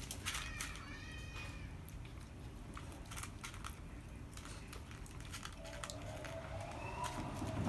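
Cats eating dry cat food: irregular crunching clicks, with a short cat meow near the start.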